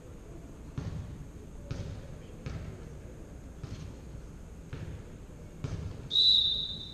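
A volleyball bounced on the hardwood gym floor six times, roughly a second apart, then a referee's whistle blowing one loud, short blast near the end, the signal to serve.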